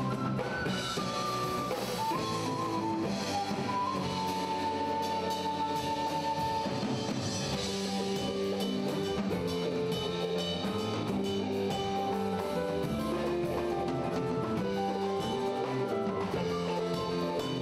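Live instrumental Andean rock: an Andean flute melody over electric guitar, bass guitar and a drum kit with timbales.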